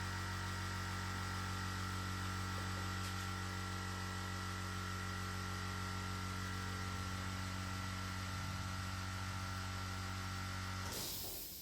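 Steady electrical machine hum with a faint high whine, cutting off sharply near the end.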